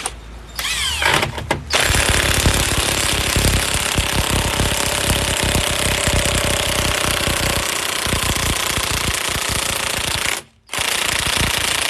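Impact wrench hammering on a wheel lug nut that has gone on cross-threaded, which stresses the stud. It gives a short burst, then one long run of rapid hammering, a brief stop, and another short burst near the end.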